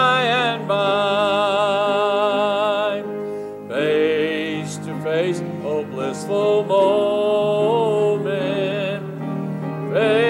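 Congregation singing a gospel hymn with instrumental accompaniment, slow phrases of long held notes with a brief dip between them.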